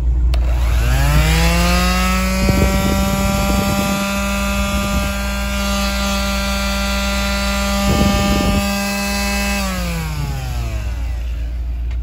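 Black & Decker quarter-sheet palm sander switched on with a click, its motor spinning up over about a second to a steady whine, running for about eight seconds, then winding down after it is switched off. The low, steady running of the pickup's idling engine is underneath throughout.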